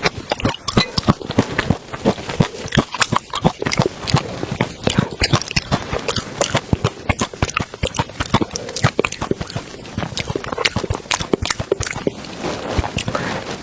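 Close-miked eating: rapid, irregular crunching, crackling and mouth smacks of someone chewing food.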